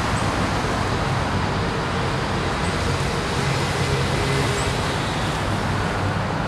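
Steady noise of road traffic, an even rushing sound with a faint low hum of engines running under it.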